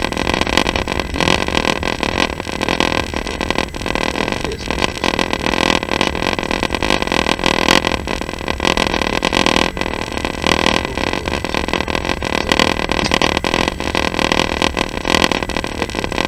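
Passenger train running along the track, heard from on board: a steady rolling rail noise of the wheels on the track.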